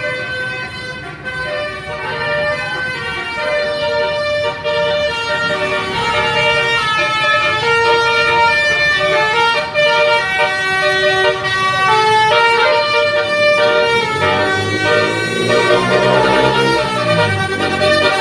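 Basuri 'telolet' bus horn, a multi-tone horn playing a tune of held notes, growing louder as the bus draws near. Near the end a lower engine sound sweeps in pitch beneath the horn.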